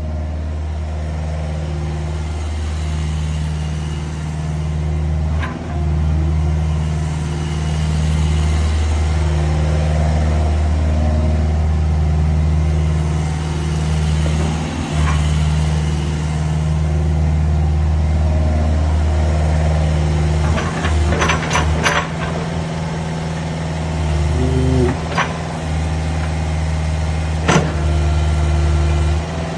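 Mini excavator's diesel engine running steadily, with a few sharp metallic clanks in the second half.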